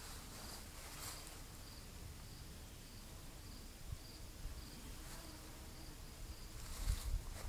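Crickets chirping steadily, a high chirp repeated about twice a second. A couple of soft low bumps from handling or footsteps come about a second in and near the end.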